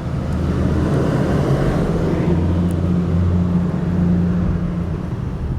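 A vehicle engine running steadily with a low hum, swelling from about two seconds in and easing off near the end.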